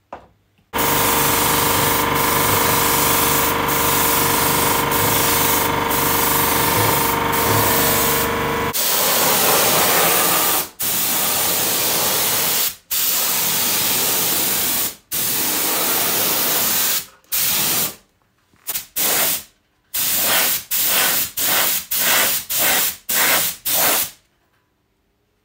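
Paint spray gun spraying grey paint onto a motorcycle mudguard. It sprays in one long continuous pass of about eight seconds with a steady hum under the hiss. Then the trigger works in bursts of about two seconds, ending in a dozen quick half-second bursts that stop abruptly.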